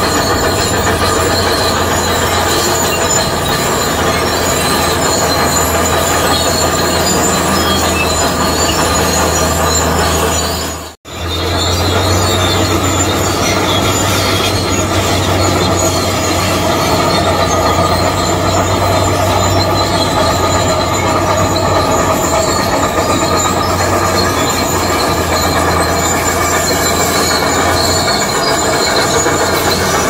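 Zoomlion bulldozer at work pushing gravel: a steady low engine drone under high, steady squealing from its steel tracks. The sound cuts out for an instant about a third of the way in.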